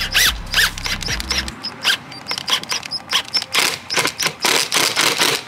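Cordless impact driver sinking a coarse-thread drywall screw into a pre-drilled hole in a wood panel, hammering in several short, rapid bursts of clicks.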